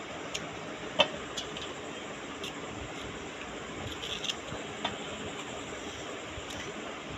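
Kitchen knife slitting fresh okra pods held in the hand: a scatter of small sharp clicks and snaps as the blade goes through the pods, the loudest about a second in. A steady hiss sits underneath.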